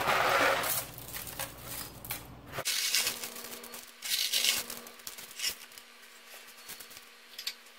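Dry mini lasagna noodles pouring and rattling out of a cardboard box into a baking dish in several short bursts, as the box is tipped and shaken over the pan.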